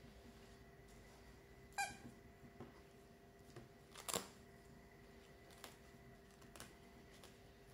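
Faint handling sounds of a felt quiet book: soft rustles and a few light clicks as fingers thread a ribbon through the felt pieces, the two sharpest about two and four seconds in, over a faint steady hum.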